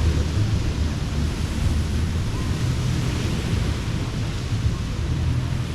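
Ocean surf breaking and washing up a sandy beach, its hiss swelling and easing with each wave, over a low rumble of wind buffeting the microphone.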